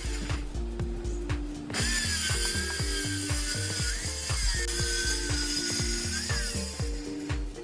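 Background music with a steady beat over workshop machine noise: rapid mechanical clicking for about the first second and a half, then a steady high whine with a hiss for about five seconds, which stops near the end.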